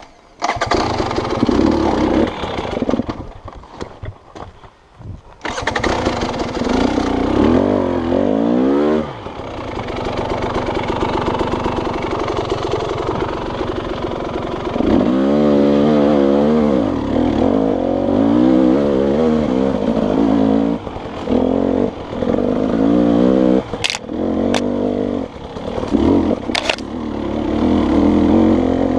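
Dirt bike engine started up and ridden off, its revs rising and falling as the throttle is worked. It drops low around three seconds in and picks up again at about five and a half seconds, with a few sharp clacks near the end.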